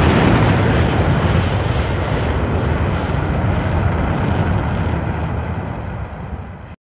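Long, rumbling tail of a large explosion sound effect, fading slowly and cutting off abruptly just before the end.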